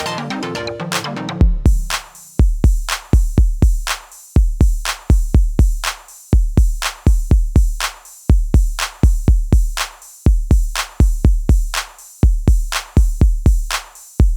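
Electronic background music: synth notes for about the first second and a half, then a bare drum-machine beat of deep bass kicks with clicking hits.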